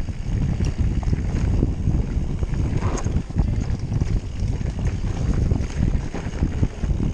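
Mountain bike riding fast down a rough dirt trail: a constant rumble and clatter from the tyres and the bike over the ground, with wind buffeting the microphone.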